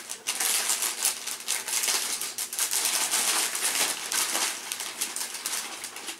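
Christmas wrapping paper being torn open and crumpled: a busy, continuous run of rips and crackles.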